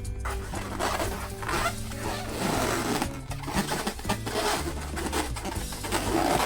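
Latex balloons being handled, an irregular run of rubbing and squeaking noise that comes and goes, over background music with a steady bass line.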